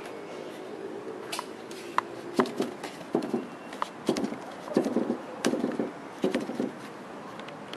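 Irregular knocks and light rattles from the closed tailgate of a 2005 Ford Focus being handled, about a dozen over several seconds, the loudest about two and a half seconds in.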